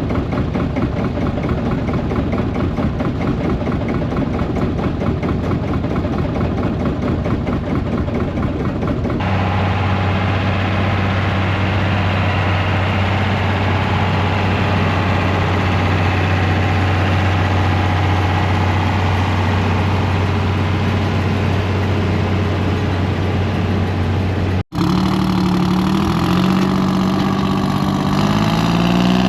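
Tractor engines running, in three separate clips: a rough-running engine, then one idling with a steady low hum from about nine seconds in, then after an abrupt cut near the end an engine revving up several times.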